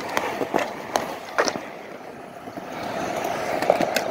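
Skateboard wheels rolling on smooth concrete: a steady rumble, with a few sharp clicks and knocks now and then.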